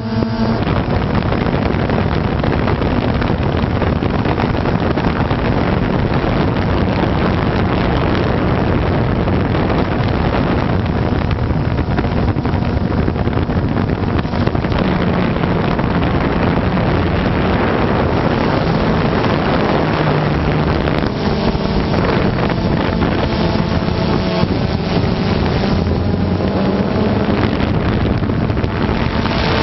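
A multirotor drone's motors and propellers running, heard through heavy wind noise on the onboard microphone: a loud, steady rushing noise with a faint motor hum whose pitch shifts a few times.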